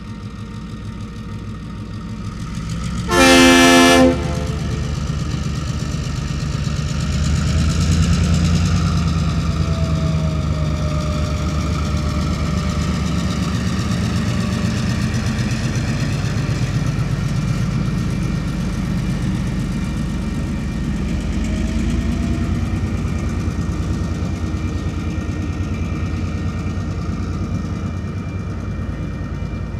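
Diesel freight locomotives working slowly past, with one short, loud train horn blast about three seconds in. The engine rumble then grows louder around eight seconds in as the locomotives pass, and container wagons roll by after them.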